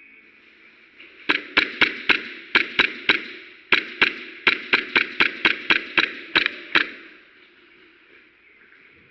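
Airsoft gun firing single shots in quick succession, about twenty sharp cracks at an uneven pace of three or four a second, starting about a second in and stopping near seven seconds.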